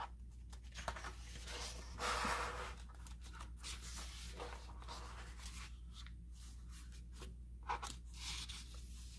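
Paper rustle of a picture book being opened and its pages turned by hand: a louder swish about two seconds in, another near the end, with soft rubs and small taps of the pages between.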